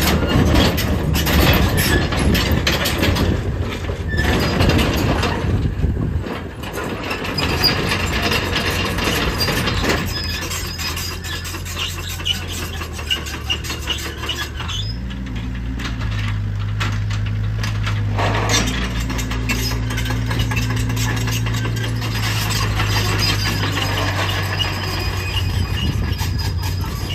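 Sany SY60C mini excavator's diesel engine running steadily, with sharp metallic clicks and squeaks over it. The engine note shifts about ten seconds in and again about fifteen seconds in.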